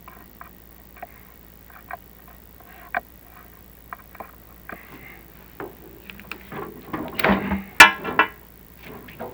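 Chimney inspection camera and its cable knocking against the inside of the flue: scattered light clicks and taps, then a louder rattling clatter with one sharp knock about eight seconds in.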